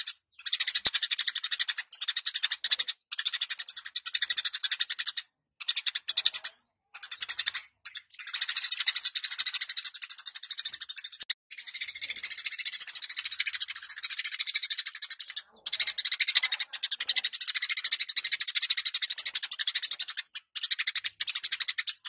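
Eurasian tree sparrow singing hard: a rapid, buzzy chatter in long bursts broken by short pauses.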